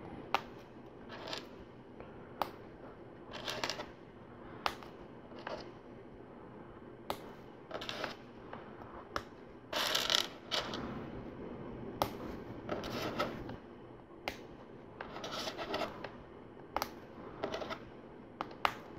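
Small black plastic LEGO tread links clicking together one by one, with a sharp click every couple of seconds. Short rattling clusters in between as loose links are picked out of a pile, the biggest about ten seconds in.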